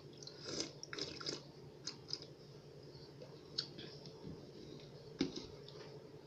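A metal knife and spoon stirring Kool-Aid in a plastic pitcher: faint scattered clinks and short liquid swishes, with a sharper click about five seconds in, then a taste from the spoon.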